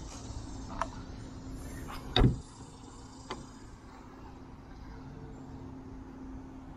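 Rear hatch of a Corvette C8 Stingray pulled down and shut, closing with one loud thud about two seconds in, with a couple of small clicks, over a steady low hum.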